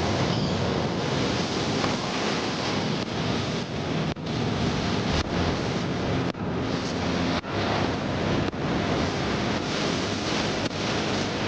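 Wind rushing over the microphone on a moving vehicle, a steady roar of noise that dips briefly about once a second.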